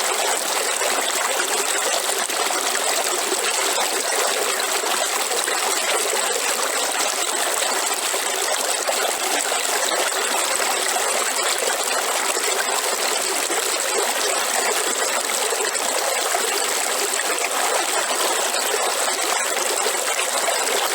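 River water flowing and babbling, a steady even rush.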